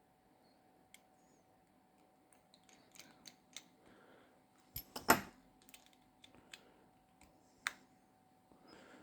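Small clicks and taps of tools and small parts being handled during smartwatch repair work, scattered and irregular, the loudest a sharp click about five seconds in and another near the end, over a faint steady hum.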